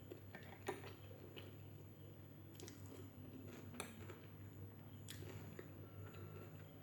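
Close-miked chewing of chicken biryani: soft, wet mouth sounds with a few sharp clicks, over a low steady hum.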